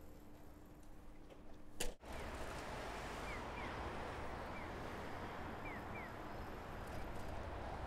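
Outdoor street ambience heard while riding a bicycle: a steady noisy rumble that comes in abruptly about two seconds in, after a quieter stretch with a low hum and a sharp click. Several short, high, falling chirps sound over it.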